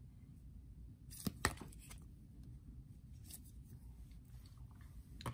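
Hard plastic card holders clicking and tapping against each other as a stack of cased sports cards is handled and swapped, with two sharper clicks about a second in and a few faint ticks after, over quiet room tone.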